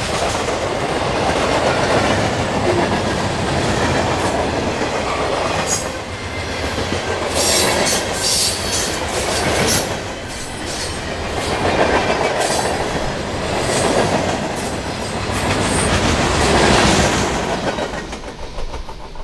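Norfolk Southern freight cars rolling past on jointed track: a steady rumble of wheels on rail with clickety-clack over the rail joints, swelling and easing as each car goes by. It dies away near the end as the last car passes.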